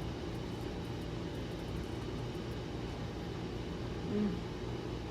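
Steady low background hum, with a short hummed "mm" from the eater about four seconds in.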